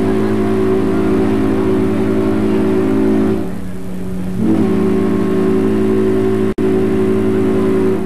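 Ship's horn of the cruise ship MS Homeric sounding two long blasts, each a chord of several low tones held together. The first blast ends about three seconds in and the second begins about a second later.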